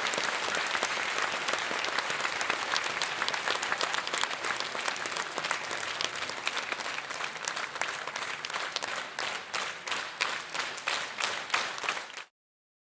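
Crowd applause dying away: dense clapping thins out into a few scattered separate claps and then stops abruptly about twelve seconds in.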